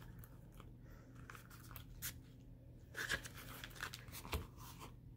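Faint rustling, with a few soft scrapes and taps, as hands handle a Louis Vuitton Victorine wallet and flex its leather open at the bill compartment.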